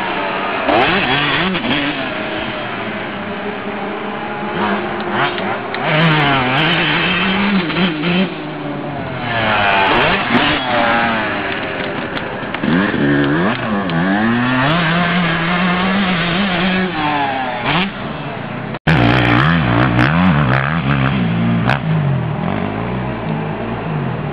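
Motocross bike engines, a Yamaha YZ125 two-stroke and a Honda CRF250 four-stroke, revving hard and falling off again and again as they are ridden round the dirt track and over jumps. The pitch rises and drops with each burst of throttle and gear change, with a brief cut-out about three-quarters of the way through.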